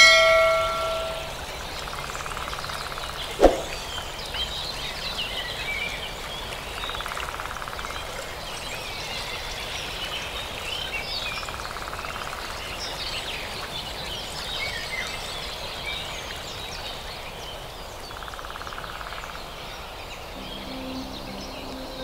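Tropical forest ambience: many overlapping bird and insect chirps over a soft hiss, with a faint trill repeating every few seconds. A bell-like ding rings out at the very start, a single sharp short sound comes about three and a half seconds in, and soft music comes in near the end.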